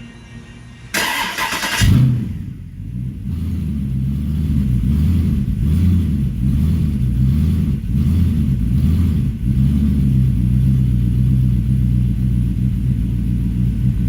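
A GM Gen IV small-block V8 is cranked by its starter for about a second, catches with a brief rev, then settles into idle. For several seconds the idle rises and falls, the idle hunting of a fresh engine whose short-term fuel trims are still learning, and then it runs smooth and steady.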